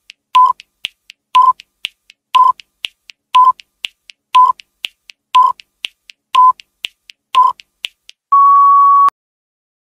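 Countdown timer sound effect: a short beep once a second with faint ticks in between, ending in one longer, slightly higher beep as the count reaches zero.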